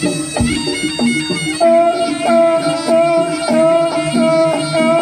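Jaranan band music: a reedy, shawm-like wind lead holds one long note from about a second and a half in. Under it run steady beats of pitched gongs and drums.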